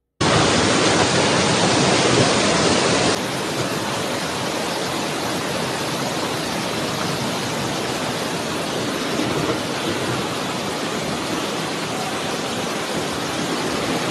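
Loud, steady rushing noise of a violent windstorm, wind and rain, roaring over a handheld camera's microphone. It drops slightly about three seconds in and then holds steady.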